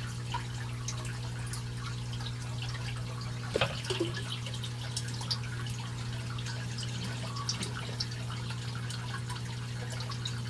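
Water from an aquaponic return pipe trickling into a fish tank, with scattered drips and small splashes over a steady low hum. One louder splash comes about three and a half seconds in.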